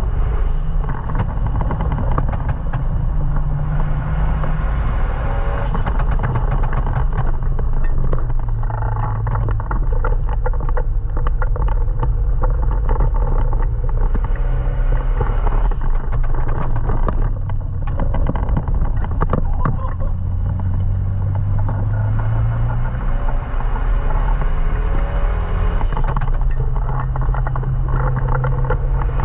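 Renault Mégane Sport 225's turbocharged four-cylinder engine being driven hard on a wet track. Its pitch climbs under acceleration and drops again on lifts and gear changes, repeatedly, over a steady hiss of spray from wet tyres.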